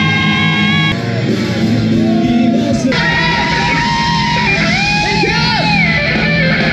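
Live rock band playing loudly with a singer: a long held sung note opens, then the band kicks in fuller and a new vocal line begins about three seconds in.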